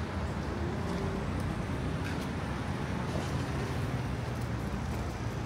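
City street ambience: a steady low rumble of road traffic with faint scattered clicks and bustle.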